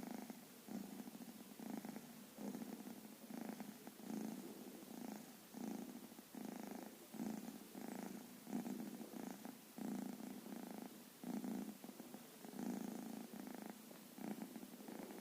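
A sleeping kitten snoring softly, a rhythmic rasp with each breath, a little more than one a second.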